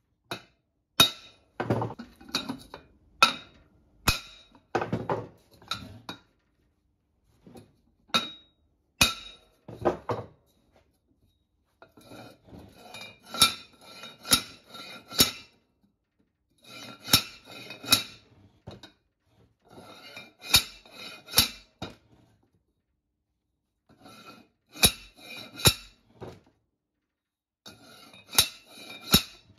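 A steel pipe slid over an axle shaft, rammed again and again against a new ball bearing to drive it down onto the shaft: sharp metallic clanks with a ringing tail, coming in groups of two or three with short pauses between.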